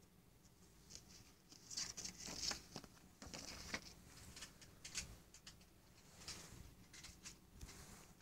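Paper inserts from a Blu-ray/DVD case being handled: faint, irregular rustling.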